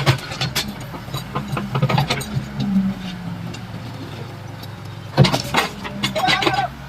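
Excavator's diesel engine running steadily while it breaks up a reinforced-concrete road slab, with scattered knocks and cracks of concrete. A loud impact about five seconds in is followed by a burst of cracking.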